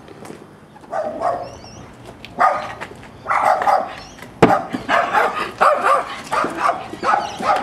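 A dog barking repeatedly, in quick runs of barks from about two and a half seconds in. A single sharp knock comes about halfway through.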